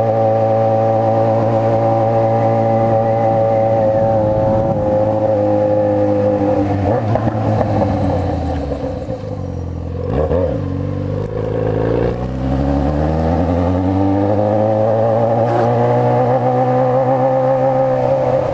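Yamaha XJ6's 600 cc four-cylinder engine running while the motorcycle is ridden. The engine note holds steady, falls as the bike slows, dips briefly around the middle, then rises again as it accelerates back to a steady cruise.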